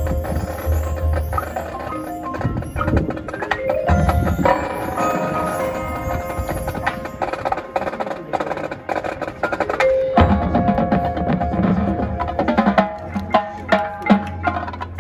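Marching band show music with the percussion to the fore: pitched mallet and bell-like notes, sharp wood-block-like clicks and a low bass, which comes back in strongly about ten seconds in.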